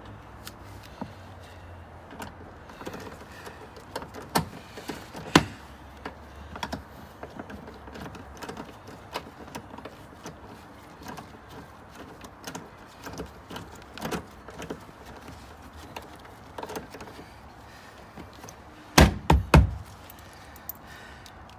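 Scattered clicks and taps of a metal socket wrench on bolts and trim while bolts are fitted in a car's boot, with a quick run of loud knocks near the end.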